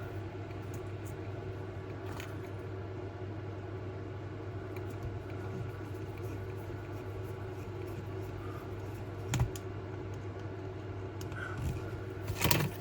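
Small clicks and taps of hands handling tiny parts while fitting a wire pickup into a model locomotive's base plate, spaced out and faint, with a louder clack near the end. A steady low hum runs underneath.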